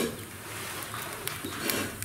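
Wood fire burning in the open firebox of a stove, crackling with scattered sharp pops over a steady hiss.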